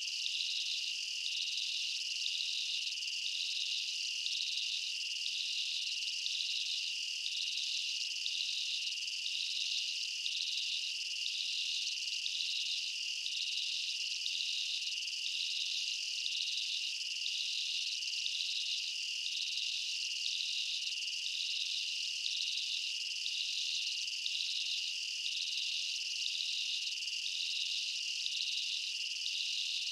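Steady insect chorus: a continuous high-pitched trilling with a regular pulsing beat, unchanging throughout.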